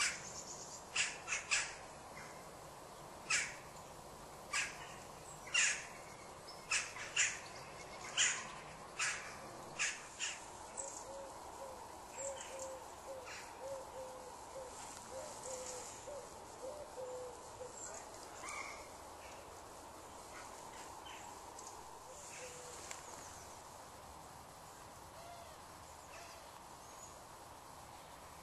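Crows cawing: about a dozen sharp calls, irregularly spaced, over the first ten seconds, then a faint run of quick low notes and a steady outdoor hush.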